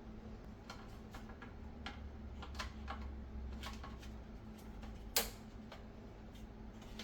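Light, irregular clicks and taps of plastic and glass as an air fryer door's glass panel is fitted back into its frame, with a sharper knock about five seconds in, over a faint steady hum.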